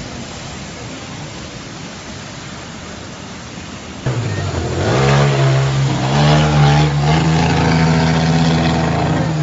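A steady rush of floodwater. About four seconds in, a motorcycle engine comes in loud and is revved, its pitch stepping up and down as the bike pushes through deep floodwater.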